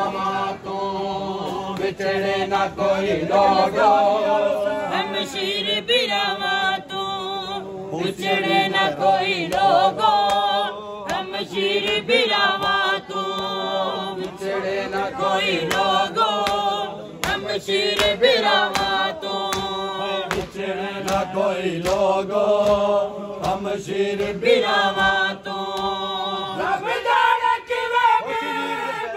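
Group of men chanting a noha, a Shia lament for Imam Hussain, in unison, with sharp chest-beating slaps (matam) keeping time under the singing. A steady low hum runs beneath and stops near the end.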